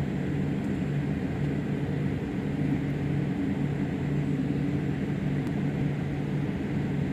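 Airliner cabin noise during taxi: the steady rumble of the jet engines and cabin air, with a low, even hum that holds without change.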